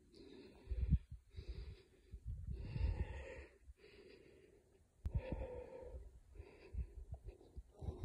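A person breathing hard close to the microphone, in rhythmic stretches about a second long, with wind buffeting the microphone.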